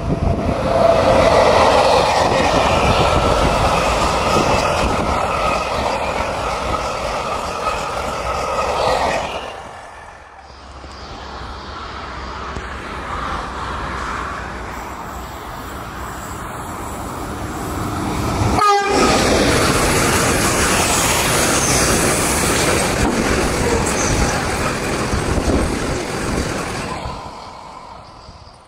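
Freight trains passing close on electrified track: an ÖBB Taurus electric locomotive and its wagons rumbling by with wheel-on-rail noise and steady high tones over it, then, after two cuts, another train approaching and passing, and tank wagons rolling away and fading out near the end.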